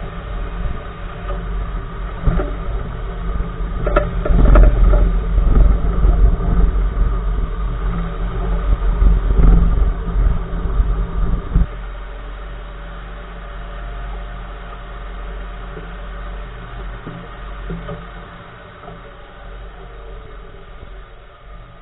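Nissan March driving, with heavy road and tyre rumble and several sharp clunks from the right front wheel, a steering or suspension knock whose cause the owner has not found. The loud rumble cuts off abruptly about halfway through, leaving a quieter steady hum.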